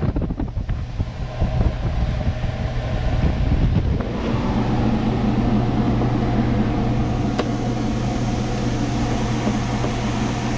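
A steady mechanical hum, like a motor running, setting in about four seconds in after a stretch of irregular, uneven noise.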